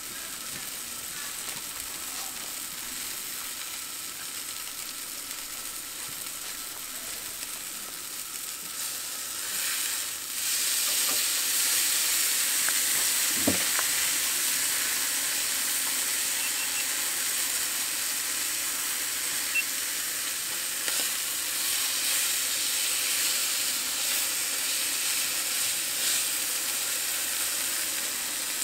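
A steady high hiss that grows louder about ten seconds in and holds, with a brief low sliding sound about halfway through.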